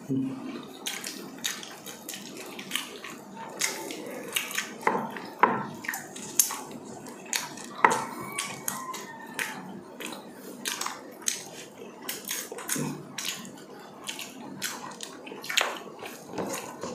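Close-up eating sounds of two people eating yellowfin tuna with their fingers: wet chewing and lip-smacking, heard as a stream of irregular short clicks and smacks.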